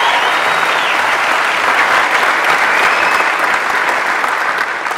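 Large audience clapping: dense, steady applause.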